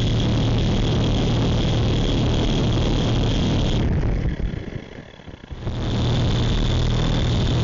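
Electric motors and rotors of an S107C mini RC helicopter, heard close through its onboard camera: a steady high whine over a low buzz. It drops away about four seconds in as the helicopter sets down on the rug, and starts up again nearly two seconds later.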